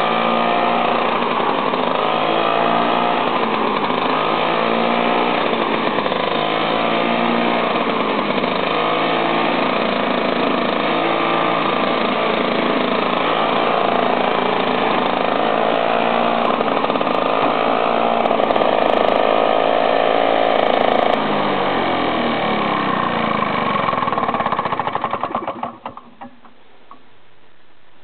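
Flymo Runner lawn mower running steadily, its speed wavering a little, then winding down with falling pitch and stopping a few seconds before the end.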